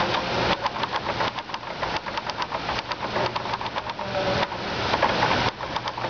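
Water from a tiered fountain splashing and falling into its basins, a steady dense rush.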